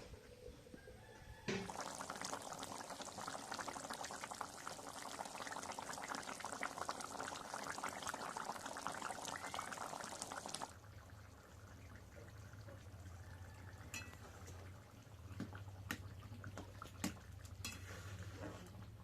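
Liquid pouring into a cooking pot in a steady rush for about nine seconds. It starts and stops abruptly, and a few light clinks of utensils on the pot follow.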